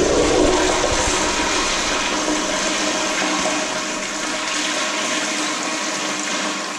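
Toilet flushing: a steady rush of water whose deep low rumble drops away about three seconds in, leaving a lighter hiss of water.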